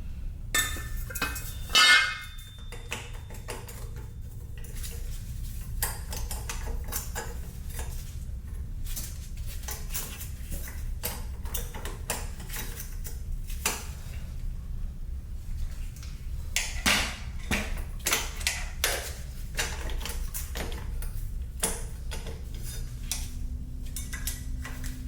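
Metal tools and parts clinking and knocking during hands-on work on a dirt bike, with one loud ringing metallic strike about two seconds in, over a steady low hum.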